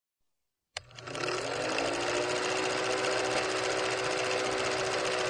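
Film projector sound effect: a click, then a fast, steady mechanical clatter with a steady hum under it, starting about three-quarters of a second in.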